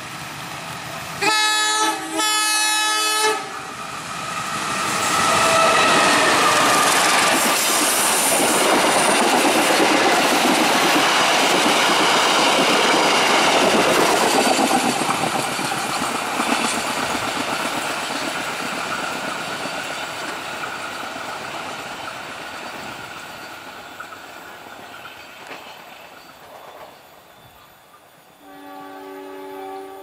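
Diesel locomotive's air horn sounding two short blasts about a second in, then the passenger train passing close with the sound of its wheels on the rails, swelling, holding and slowly fading away. Near the end a horn sounds twice again, quieter.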